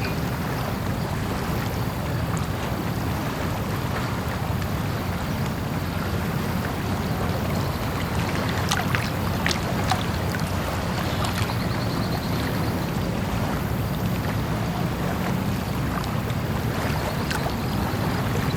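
Small-harbour ambience: a steady low hum over a wash of water, with a few sharp clicks and knocks about halfway through and again near the end.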